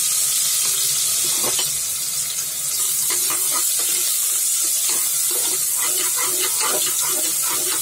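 Chopped onions sizzling in hot oil in a pressure cooker, a steady hiss. A metal slotted spoon stirs them and scrapes against the pot, mostly from about three seconds in.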